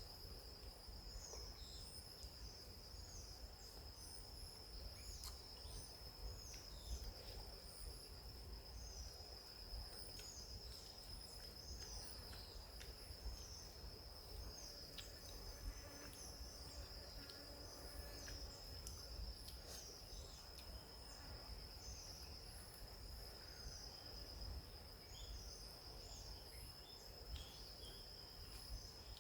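Faint tropical forest ambience: a steady high insect drone, with short high chirps, likely birds, repeating about once a second over it.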